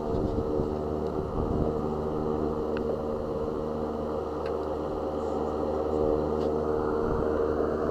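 Car engine running steadily, a constant hum with a few faint ticks.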